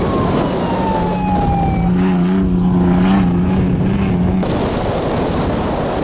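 Off-road race truck engine at high revs as the truck passes, its whine falling in pitch for about two seconds. The engine then holds a steady note, with rough rumbling and noise over it. The sound changes abruptly a little past four seconds in.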